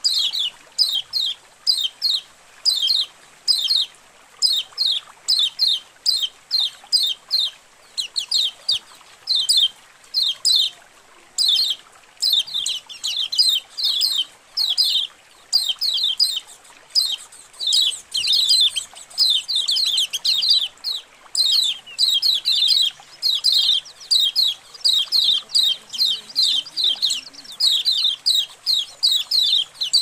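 A colony of white-eyes (kecial kuning) chattering together: short, high chirps in quick clusters, two or three a second, overlapping without a break.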